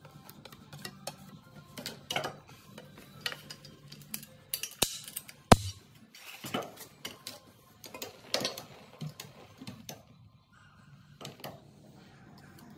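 Metal clinks, knocks and scrapes of drywall tools being handled: a taping knife scraping joint compound, and the gooseneck adapter of a compound loading pump being fitted and the pump worked. A single sharp knock about five and a half seconds in is the loudest.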